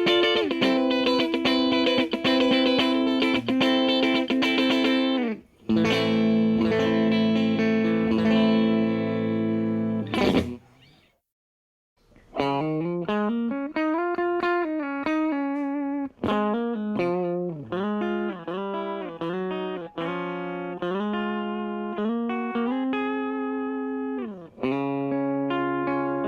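Telecaster electric guitar played through an Orange Micro Terror amp and a Laney 2x12 cabinet, miked. It rings out sustained chords, stops for about a second near the middle, then plays single-note lead lines with bends and slides.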